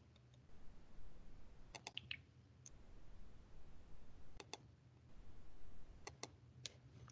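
A handful of faint computer mouse and keyboard clicks, some in quick pairs, as a commit is made and a menu item is chosen.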